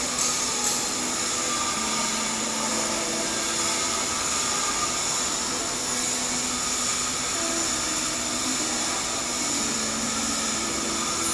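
Stick-welding arc with an E7018 rod burning steadily while laying the cap pass on a header: an even, hissing sizzle with a few small crackles near the start and a faint hum underneath.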